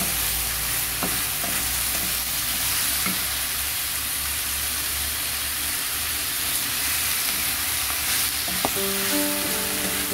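Leafy greens sizzling as they are stir-fried in a nonstick wok, with a steady hiss and a few light knocks of a wooden spatula against the pan. Background music comes in near the end.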